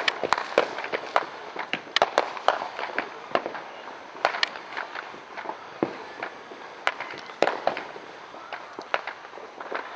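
Fireworks and firecrackers going off all around, a steady run of irregular sharp bangs and pops at varying distances, with no let-up.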